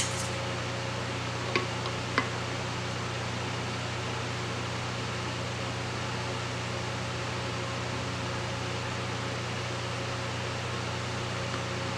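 Steady hiss and low hum of a running fan. Two small clicks about a second and a half and two seconds in.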